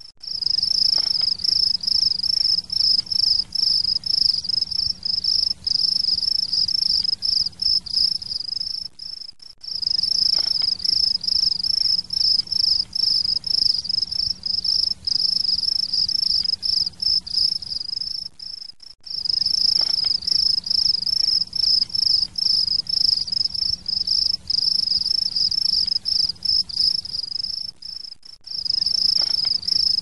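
Insects trilling steadily in a fast, high-pitched pulse. The trill drops out briefly about every nine or ten seconds.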